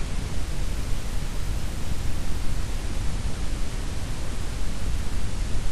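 Steady background noise: an even hiss with a heavier low rumble, unchanging, with no other sound.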